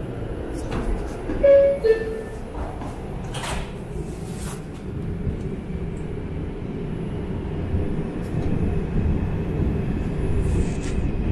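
New York City subway train at a station stop: the two-note falling door chime sounds, the sliding doors knock shut, and the train pulls away, its low rumble of wheels on track slowly growing louder.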